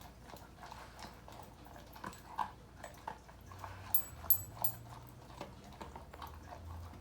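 Doberman eating: irregular chewing and crunching clicks, the sharpest a few quick ones about four seconds in.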